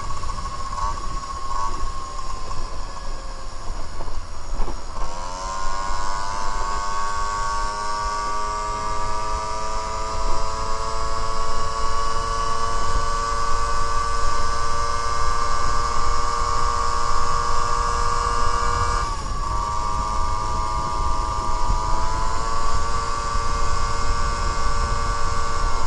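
Tuned 50cc two-stroke moped engine (Eurocilindro 50cc cylinder, Dellorto 13/13 carburettor, Leovince handmade exhaust) running at high revs under way. The revs drop sharply about five seconds in, then climb back and hold steady. A shorter drop comes about three-quarters of the way through, and the revs rise again. Wind rumble sits underneath.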